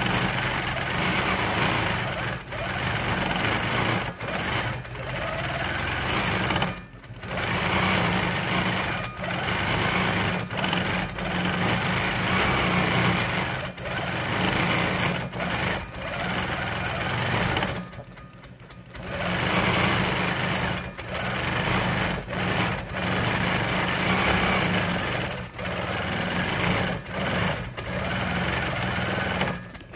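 Quilting machine stitching steadily while it is guided through a free-motion swirl pattern. It pauses briefly about seven seconds in, and again for about a second around eighteen seconds in.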